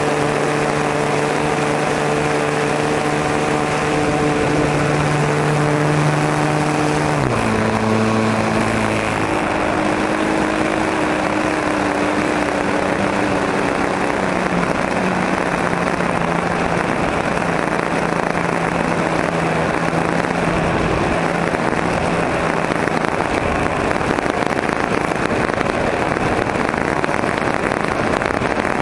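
O.S. .40 glow engine of a Calmato Sport 40 RC plane running steadily in flight, with heavy wind rush over the onboard camera. About seven seconds in, the engine note drops as it is throttled back for the landing approach. It then fades under the wind noise.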